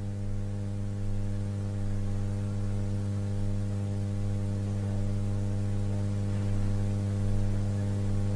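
Steady electrical mains hum from a public-address sound system: a low buzz with a ladder of evenly spaced overtones, strongest at the bottom.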